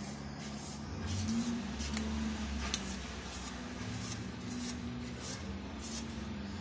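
Silicone spatula scraping thick, sticky jaggery, peanut and sesame mixture out of a pan onto a wooden board: a run of short scrapes, with two sharp clicks of the pan near the middle. A steady low hum runs underneath.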